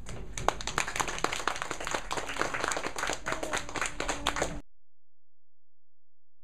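Applause from a small group: many quick, overlapping hand claps that stop abruptly about four and a half seconds in.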